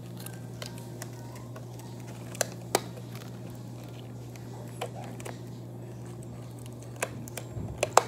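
Latex balloon being stretched and handled by hand, giving scattered short snaps and clicks, about seven of them, over a steady low hum.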